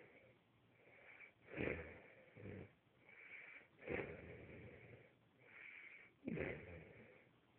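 Heavy snoring: three loud snores about two and a half seconds apart, with a fainter, higher breathy sound between them.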